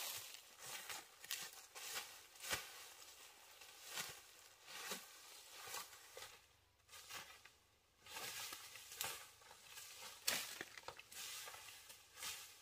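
Irregular crackling and rustling, with frequent sharp snaps and clicks and a quieter stretch near the middle.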